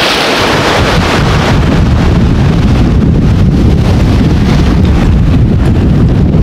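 Gale-force wind buffeting the microphone in an open sailboat cockpit: a loud, steady rumbling rush with no let-up.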